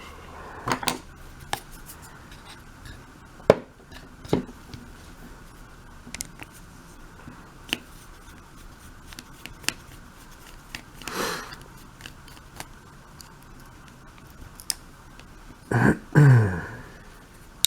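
Small metal clicks, taps and scrapes of a pin-tumbler mortise lock cylinder being taken apart by hand, with a louder cluster of handling noise near the end.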